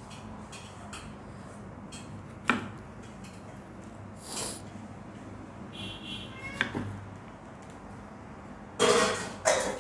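Knife cutting a tomato on a wooden chopping board: a few scattered soft knocks and scrapes. Near the end comes a louder short throaty burst, like a cough.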